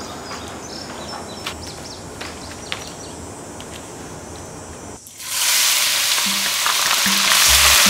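A few light taps and clicks of hands handling seafood on a bamboo tray. Then, about five seconds in, loud sizzling starts suddenly as a spoonful of chopped food is dropped into hot oil in a wok.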